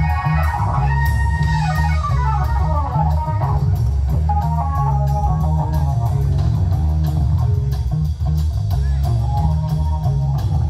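Live rock band playing an instrumental passage with electric guitars, keyboard and drums. A quick run of melodic notes falls away in the first few seconds over a steady bass and cymbal beat.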